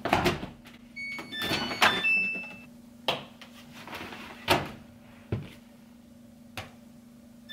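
Bedsheets being loaded into a front-load washing machine: rustling, with about half a dozen sharp knocks and clicks from the drum and door as it is handled. A few short electronic beeps from the machine in the first few seconds, over a steady low hum.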